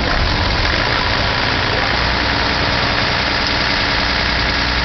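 Diesel engine of a truck-mounted concrete pump running steadily under load while it pumps concrete through its boom.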